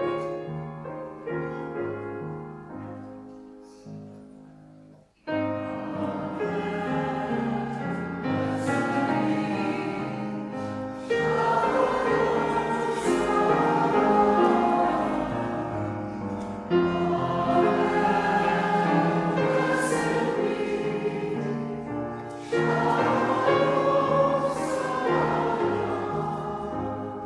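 Choir singing to musical accompaniment. It opens softly, then the full choir comes in about five seconds in and swells phrase by phrase.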